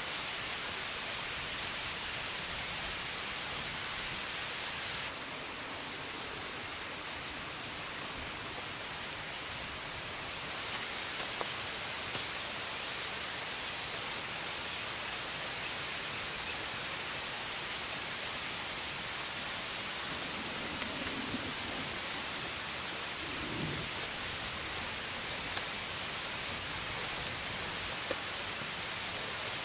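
Rainforest ambience: a steady, even rain-like hiss, with a faint high steady tone and a few soft knocks and rustles.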